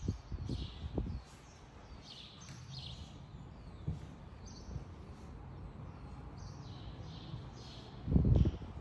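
Small birds chirping, short high calls repeated every second or so over faint room noise. Low thuds come in the first second, and a louder low rumble comes about eight seconds in.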